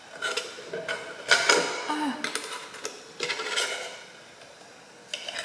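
Painting supplies being handled: a run of knocks and clattering rattles of hard objects, loudest about a second and a half in, with a couple of clicks near the end.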